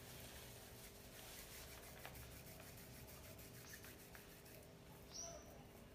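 Near silence: faint soft rubbing of hands rolling mashed potato and rava dough into a finger shape, over a steady low hum. A brief high chirp sounds about five seconds in.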